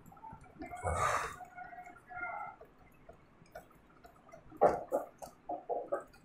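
Cloth duster wiping a whiteboard: a burst of rubbing about a second in, then a quick run of short wiping strokes near the end.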